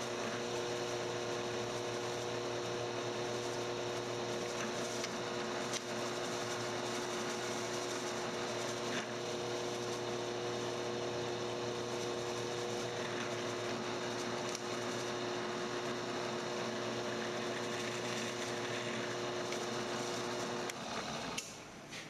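Drill press running, its twist drill cutting a pilot hole for a 10-24 tap through 3/8-inch mild steel, with a steady hum and a few faint clicks. The hum stops near the end as the drilling finishes.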